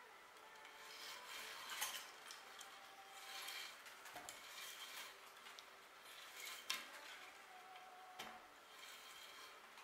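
Faint rustling and scraping of a strand of chair cane being pulled and threaded through the holes and woven strands of a wooden seat frame, with a few light ticks.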